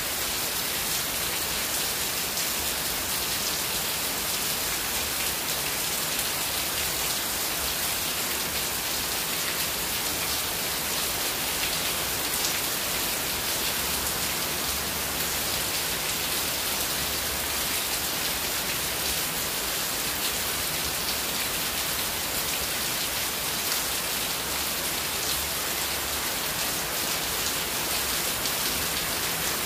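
Heavy downpour of rain falling steadily on a waterlogged yard and paving, an even hiss with no let-up.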